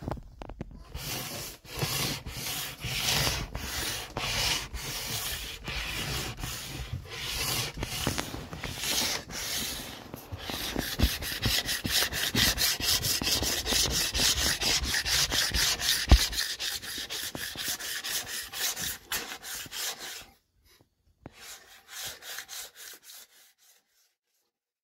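Plastic wax scraper scraping hardened wax off a snowboard base in repeated strokes, about two a second at first and then faster and denser, stopping briefly near the end before a few last strokes.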